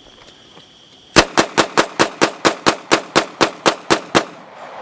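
SIG 9mm pistol fired in rapid fire: about fourteen shots in quick, even succession, some four to five a second, starting about a second in.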